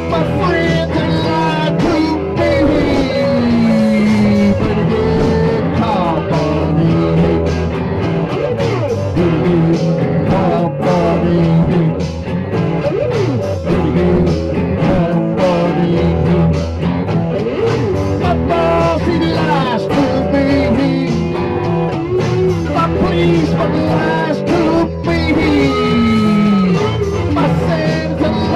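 Blues-rock band music, mostly instrumental, with a lead guitar playing notes that slide downward in pitch, over steady bass and drums.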